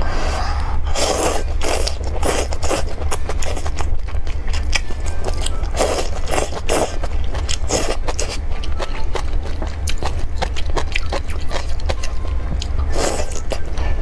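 A person slurping noodles from spicy soup about a second in, then chewing with close, wet mouth clicks and smacks. A steady low hum runs underneath.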